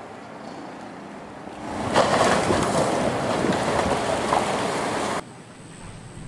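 Fast-flowing floodwater rushing and churning, swelling into a loud, even rushing noise about two seconds in and cutting off abruptly about five seconds in, leaving a quieter steady rushing.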